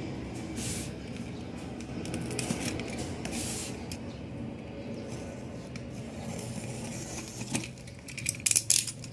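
Utility knife blade slicing along the packing-tape seam of a cardboard box in short scraping strokes, with louder crackling of tape and cardboard near the end, over a steady low background hum.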